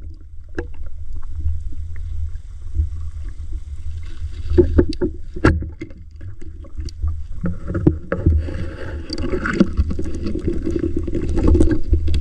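Shallow water sloshing and splashing as someone wades through it, with scattered knocks and sharper splashes. The splashing grows busier in the second half, over a low steady rumble.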